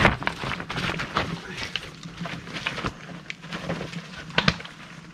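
Mountain bike climbing over wet, slippery limestone rocks: tyres and bike clattering in quick, irregular knocks over a steady noise, with one harder knock about four and a half seconds in.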